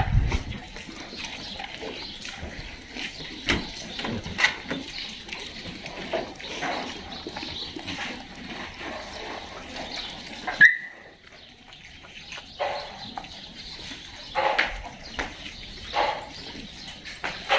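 A group of dogs making scattered short barks and yelps. The loudest is a single sharp yelp about ten seconds in.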